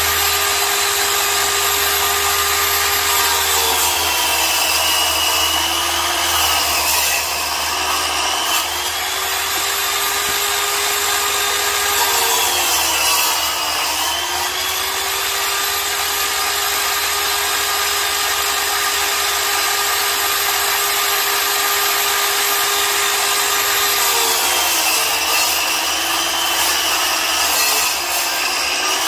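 Large water-cooled angle grinder cutting through masonry, its motor running loud and steady. The motor's pitch sags three times as the blade is pushed into the cut and climbs back each time it eases off.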